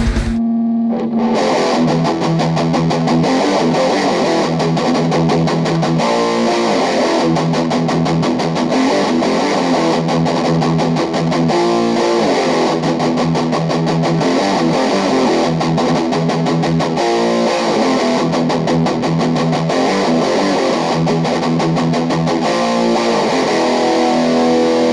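Electric guitar played through a Cort MX15 practice combo amp with a distorted tone, picking a quick run of notes. The playing starts about a second in after a brief pause.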